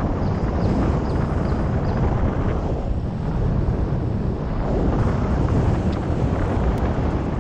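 Wind buffeting the microphone of a GoPro action camera on a moving road bike: a loud, steady rush of wind noise, heaviest in the low end.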